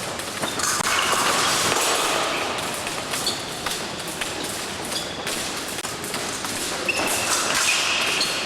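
Épée fencing bout: repeated thuds and sharp clicks of the fencers' footwork and blade contact.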